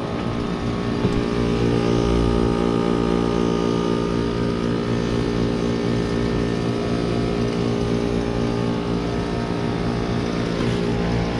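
Nordyne heat pump outdoor unit running with a steady compressor hum of several held tones over a low rumble. The outdoor fan seems stopped, which the owner takes to mean it is probably in defrost.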